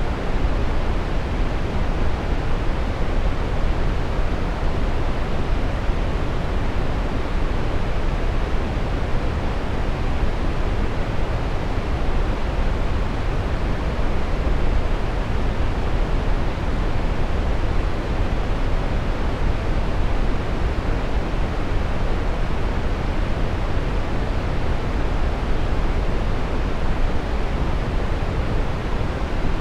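Steady brown noise: an even, deep rushing hiss weighted toward the low end, without change or break.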